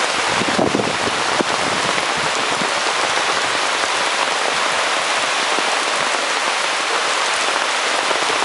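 Steady rain falling on asphalt, an even patter of drops.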